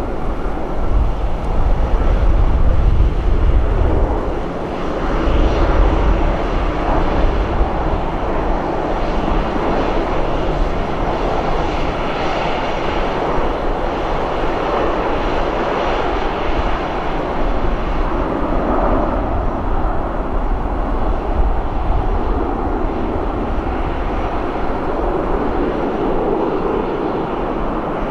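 Twin CFM56 jet engines of an Airbus A320-214 running steadily at taxi power as the airliner taxis, a continuous rushing drone. A heavy low rumble in the first four seconds eases off about four and a half seconds in.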